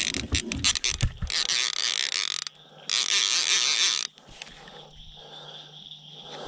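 Bait clicker on a fishing reel ratcheting as a flathead catfish takes line: a run of separate clicks, then two bursts of rapid clicking about a second long each, stopping a little after four seconds in. The clicker going off is the sign of a bite.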